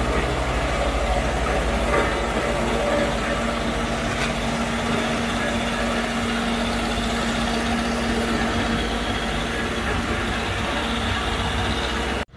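Heavy vehicle engine running steadily with a deep, pulsing rumble and a steady hum over the middle stretch, amid road-work noise; it cuts off suddenly near the end.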